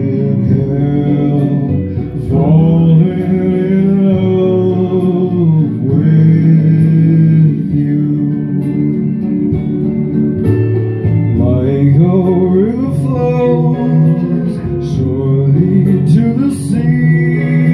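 A man singing a slow song into a handheld microphone, amplified through a speaker, over a backing track with guitar.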